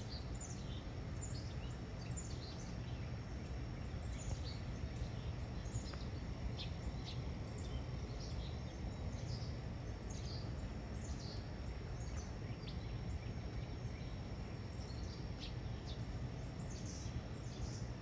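Outdoor ambience of scattered short bird chirps over a steady low background rumble, with a faint steady high insect tone.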